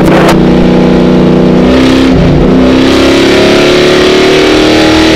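A race car's engine heard from inside the cockpit, running hard. Its note dips briefly about two seconds in, then rises steadily as the car accelerates.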